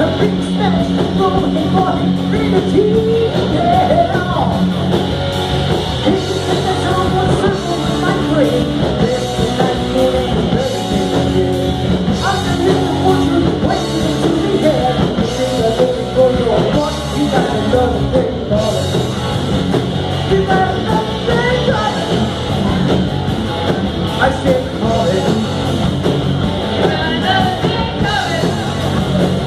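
Live rock band playing loud through a PA: electric guitar and a drum kit.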